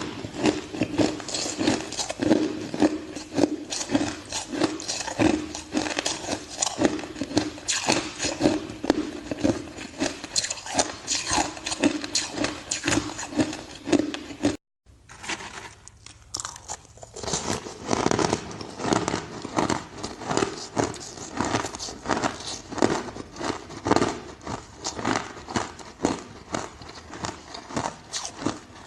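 Ice being bitten and chewed close to the microphone: rapid, continuous crunching. About halfway through the sound cuts out for a moment, returns quieter for a couple of seconds, then builds back to full crunching.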